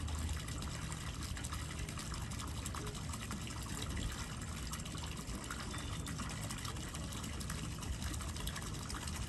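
Steady stream of water splashing into the lake from a discharge outlet in a 53-foot Carver motor yacht's hull, over a faint steady low hum.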